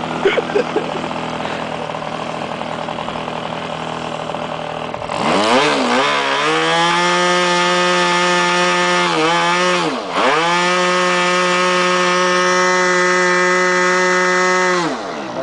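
OK Model Commander 123 model engine running. It starts at a low steady speed, then speeds up about five seconds in to a high, steady buzzing pitch. It stumbles briefly twice, most sharply about halfway through, then slows back down near the end.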